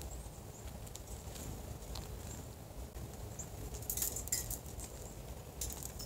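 Small songbirds visiting a seed-covered straw hat: faint, short, high chirps, with a few light scratchy rustles of feet and wings on the straw about four and six seconds in.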